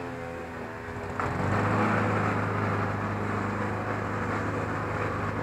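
A motor starts abruptly about a second in and runs steadily with a low hum and a rushing noise.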